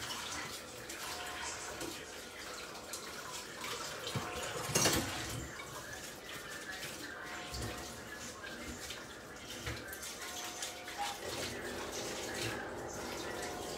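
Pans simmering on a stovetop, with a steady bubbling, hissing noise. There is one louder knock about five seconds in.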